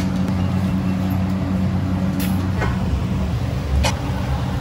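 Steady low hum and roar of a commercial kitchen's gas burners and equipment, with a couple of sharp clinks of crockery, about two seconds in and again near the end.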